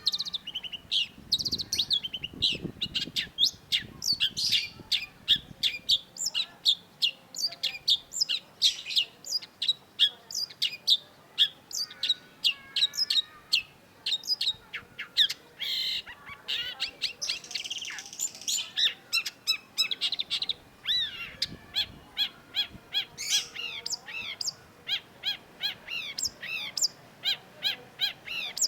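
Long-tailed shrike singing: a continuous string of short, sharp high notes, about two or three a second, with a few longer, varied phrases mixed in.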